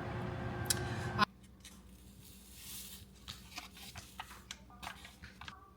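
A steady background noise cuts off abruptly about a second in. After it come quiet handling sounds: a string of light clicks and taps, with a brief soft hiss a couple of seconds in.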